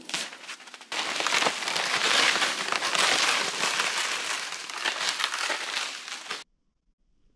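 Plastic sled dragged over snow along with crunching footsteps, a steady crackling hiss that cuts off suddenly near the end. Before it, a short rustle of items being dropped into the sled.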